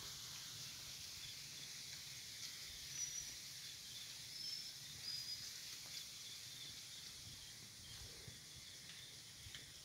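Steady high-pitched insect chorus of tropical forest ambience, with three short high chirps about three, four and a half and five seconds in, over faint low rustling.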